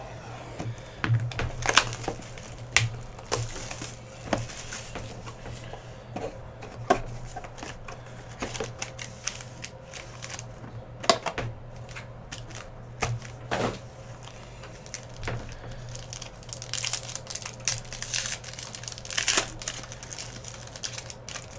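Plastic wrapper and cardboard packaging of a trading-card hobby box being torn open and handled: irregular crinkling, tearing and sharp crackles, with a steady low hum underneath.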